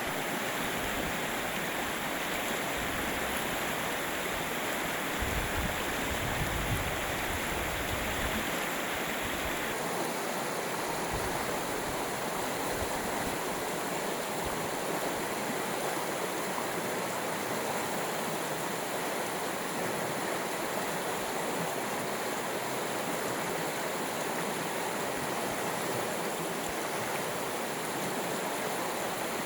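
Water of a stream running steadily over stones. About ten seconds in its tone changes and turns a little duller.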